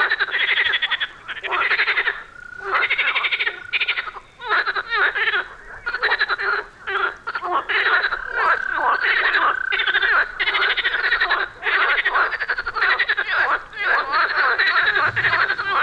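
Frogs croaking in a dense chorus at the water's edge: pulsed, rattling calls one after another with only short gaps, a couple of them drawn out into a held note.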